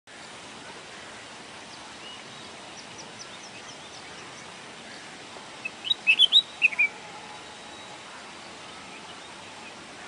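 Red-whiskered bulbul calling: a short, loud burst of quick rising and falling notes a little over halfway through, over a steady background hiss. Faint high chirps come a few seconds earlier.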